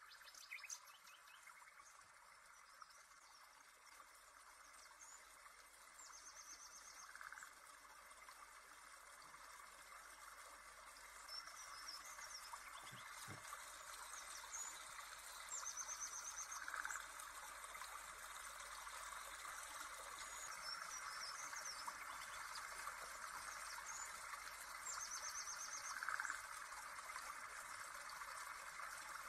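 Faint birdsong over a steady flowing-water hiss: chirps and short trills recur in the same pattern about every nine or ten seconds, as in a looped nature-sound recording.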